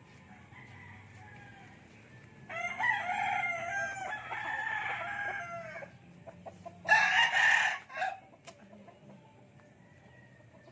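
Rooster crowing: one long drawn-out crow starting about two and a half seconds in and lasting over three seconds, then a shorter, harsher, louder call about seven seconds in.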